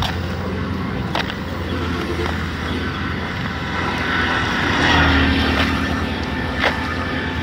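Steady engine and road noise of a moving vehicle, with a constant low hum and a few sharp rattles. It grows louder for a moment about five seconds in.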